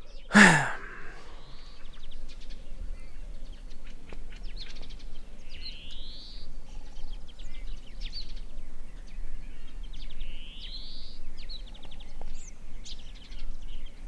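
Wild birds calling: a rising whistled call about a second long comes several times, with short high chirps and clicks between, over a low steady rumble. A brief loud sound that falls steeply in pitch comes right at the start.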